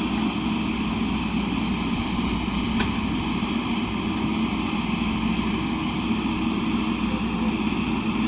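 Diesel engine of a JCB backhoe loader running steadily, with a brief click about three seconds in.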